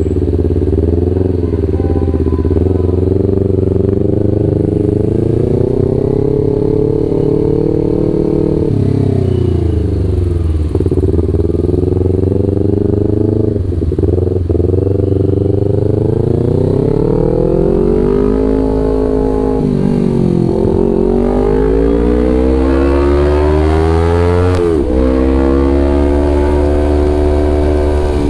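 Kawasaki Ninja 250 FI's parallel-twin engine through a Villan ZX1 aftermarket full-system exhaust, under way: the exhaust note climbs and falls repeatedly, dropping sharply at each gear change, and pulls up hard in pitch in the last third before one more sharp shift.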